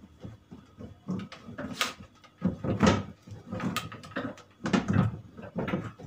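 Plastic washing-machine cabinet knocking and scraping as it is handled and shifted, a run of irregular bumps with two louder ones about three and five seconds in.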